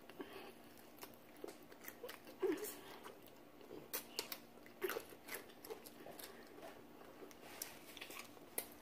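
Close-up eating sounds of fried chicken: scattered wet lip smacks, chewing and small crunches of the crispy skin, coming irregularly.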